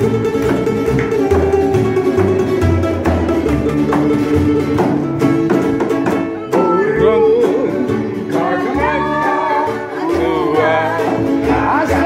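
Small live acoustic band playing a lively tune on cello, double bass and a small plucked string instrument; a singing voice comes in about six and a half seconds in.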